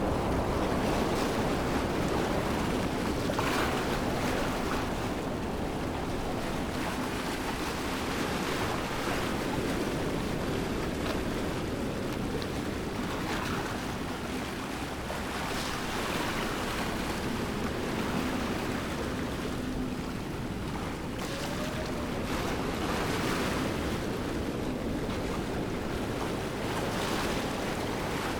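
Steady rushing water of a waterfall, a continuous roar that swells and eases slightly.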